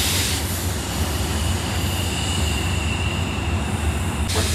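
Diesel train running with a steady low engine rumble. A hiss of air cuts off about half a second in, and a thin, steady, high-pitched wheel squeal holds through the middle.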